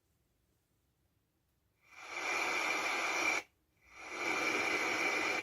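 Hissing noise from the alarm clock's small speaker, heard twice. Each burst fades in over about half a second, holds steady with a faint whistle-like tone in it for about a second and a half, then cuts off sharply.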